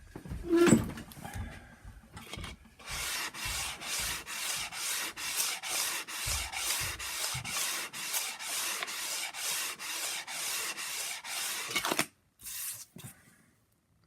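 Planer knife clamped in a Deulen sharpening jig being stroked back and forth over 120-grit sandpaper on a glass plate: an even run of rough rasping strokes, about two a second, that stops about twelve seconds in. A short knock and handling noise come first as the jig is set down.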